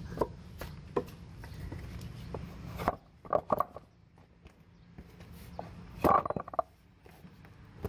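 Knocks and clunks of a heavy truck driveshaft being handled and rolled over on a wooden block, with louder metallic clanks at the U-joint about three seconds in and again about six seconds in.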